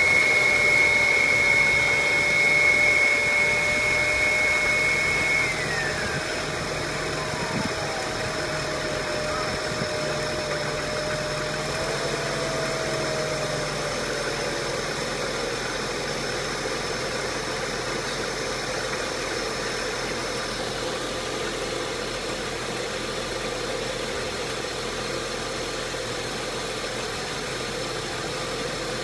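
2003 Volkswagen Passat 1.8T's turbocharged four-cylinder engine idling roughly. A high whine over it falls away in pitch about six seconds in.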